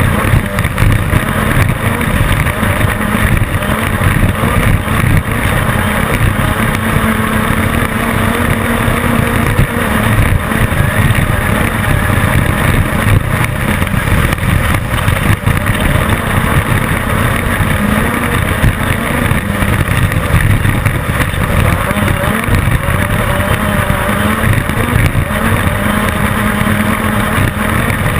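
Class 10 desert off-road race car running flat out, its engine note holding high and drifting up and down, over dense rumbling and rattling from rough ground.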